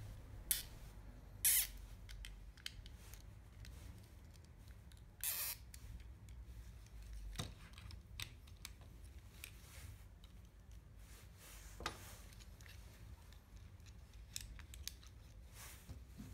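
Light, scattered clicks and taps of acrylic robot-arm parts and small screws being handled and fitted together, with a small hex key turning a screw at the start. A handful of sharper clicks stand out among them.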